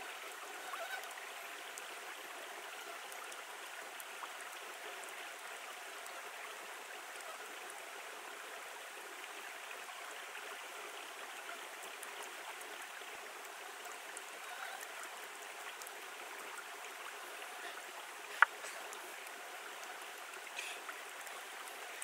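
Small rocky forest stream flowing, a steady even rush of water. One sharp click stands out near the end.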